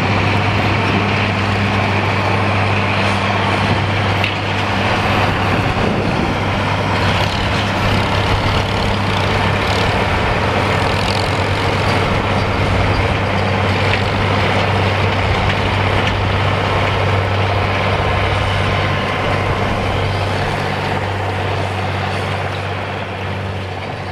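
International 5088 tractor's diesel engine running steadily under load, together with the whir of the PTO-driven New Holland FP230 forage harvester chopping soybean straw and blowing it into the wagon. The sound fades near the end as the rig moves away.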